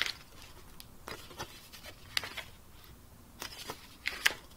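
Paper booklet and cover sleeve rustling in the hands against a clear plastic Blu-ray case, with a few sharp clicks and rubs. The loudest clicks come at the start, about two seconds in, and again around four seconds in.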